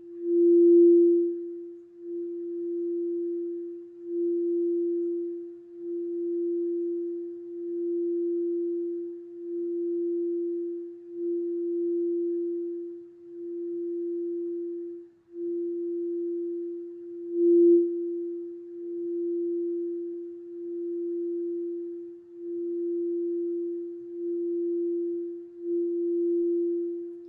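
Singing bowl sounding one steady, pure tone that swells and fades in slow waves about every two seconds. It sounds fuller and louder just after the start and again about two-thirds of the way through.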